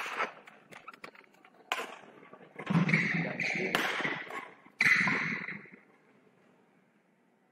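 Badminton rally: sharp racket strikes on the shuttlecock, with longer squeaks from shoes on the court floor between them. The sound cuts out to silence about six seconds in.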